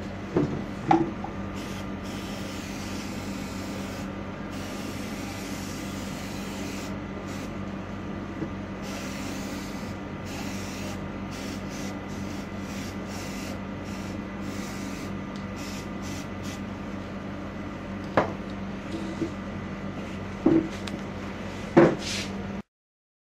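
Aerosol contact cleaner sprayed onto a printer power-supply circuit board in a series of hissing bursts with short breaks, over a steady low hum. A few sharp knocks come near the start and near the end.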